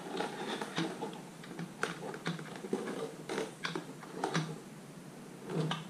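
Fox 40 fork lower legs being slid off the stanchions over a drain bucket: a run of irregular clicks, knocks and scrapes as the lowers come free.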